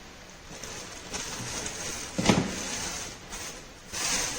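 Plastic packaging rustling as food processor jars are handled, with one sharp knock about two seconds in as a jar is set down.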